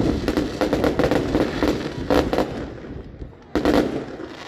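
Fireworks going off: a dense run of rapid crackling bangs, easing briefly before a loud new burst about three and a half seconds in.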